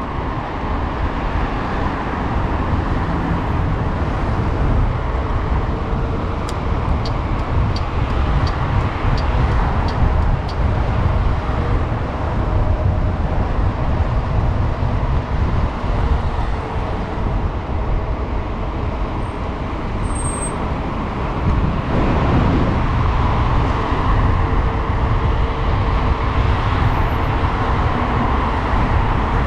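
Steady rumble of wind and road noise from riding a bicycle along a city street, with traffic around. A run of about ten light ticks comes a few seconds in, and a vehicle passes with a falling pitch about two-thirds of the way through.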